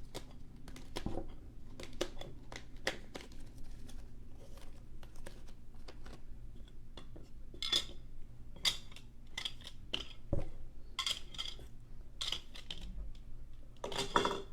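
Trading cards in hard plastic holders being handled and stacked on a table, a string of sharp clicks and clattering that gets busier from about halfway.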